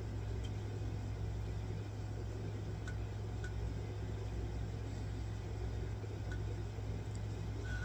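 Steady low hum with a faint hiss over it, and a few faint ticks.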